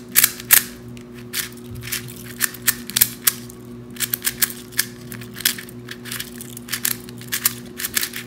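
Plastic clicking and clacking of a mini barrel-shaped puzzle cube keychain being turned quickly by hand: irregular sharp clicks, several a second, with short pauses between runs of turns. A steady low hum runs underneath.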